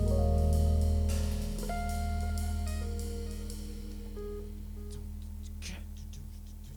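Live band of keys, electric bass, guitar and percussion letting a held chord ring out: a deep bass note and sustained keyboard and guitar notes fade away steadily, with a few light cymbal taps near the end.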